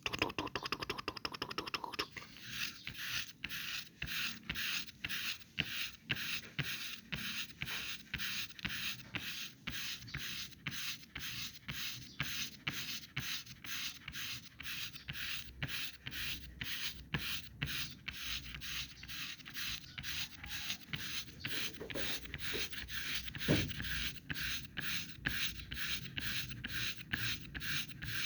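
Foam being rubbed against the microphone in short scratchy strokes, about two to three a second, starting about two seconds in after a few light taps.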